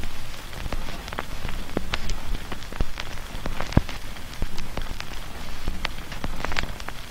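Rain ambience: irregular drips and taps, a few a second, over a steady low rumble.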